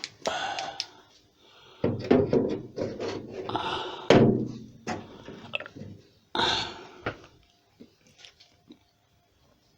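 Thunks and clatter of things being handled for about seven seconds, then a few faint clicks near the end.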